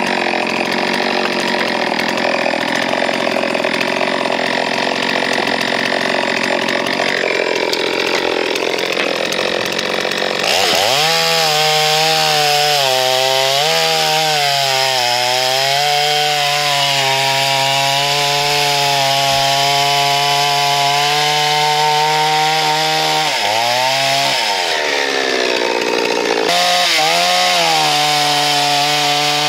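Farmmac F380 chainsaw running at full throttle while cutting through logs. Its engine note sags several times as the chain loads up in the wood and climbs back as it frees up.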